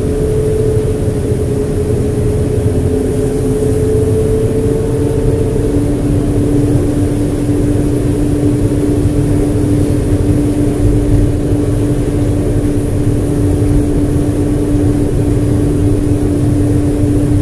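Johnston mechanical street sweeper at work, heard from inside its cab: a steady machine drone from the engine and sweeping gear, with a held hum. A higher tone in the hum drops out about six seconds in.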